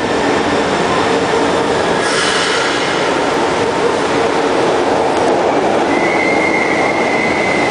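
São Paulo Metro train running slowly along an underground station platform, with a loud steady rumble. A high-pitched squeal comes in about six seconds in.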